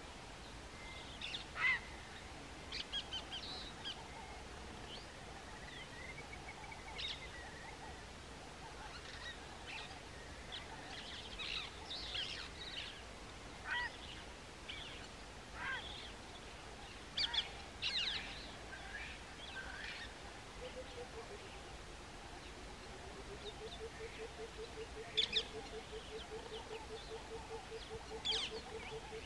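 Birds calling: scattered short chirps and calls throughout, and from about two-thirds of the way in a steady low pulsing call that goes on to the end.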